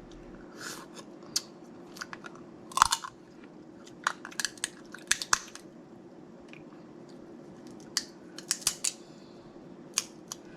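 Snow crab leg shells being cracked and snapped apart by hand, with chewing, close to the microphone: an irregular scatter of sharp cracks and clicks, the loudest about three seconds in.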